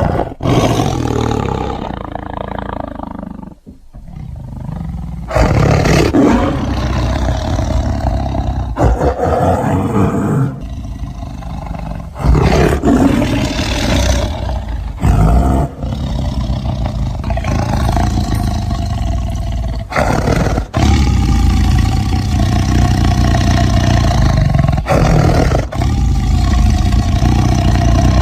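Tiger roaring: a string of long, deep roars with abrupt breaks between them, where separate takes are cut together.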